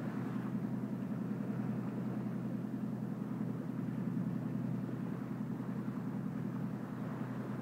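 Motorboat engine running steadily with a low, even hum, over a steady rush of water along the hull.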